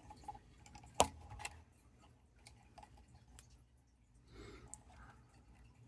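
Faint small plastic clicks and ticks from a 1/24-scale RC crawler's axle and steering linkage being worked back and forth by hand, checking how much play it has, with one sharp click about a second in.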